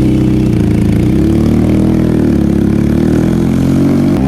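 Benelli motorcycle engine on its stock exhaust, idling loudly and steadily, its pitch wavering slightly midway. The rider suspects a slight exhaust leak is making it sound this loud.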